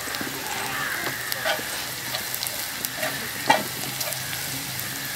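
Onions, green chillies and spice powders sizzling in hot oil on a large flat iron griddle, while a steel spatula stirs them, scraping and knocking on the griddle a few times, most sharply about three and a half seconds in.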